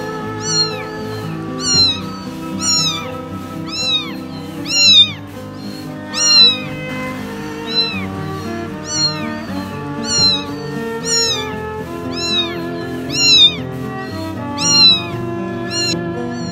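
Young kitten meowing over and over, short high-pitched cries about once a second: a lost kitten calling for its mother. Background music plays underneath.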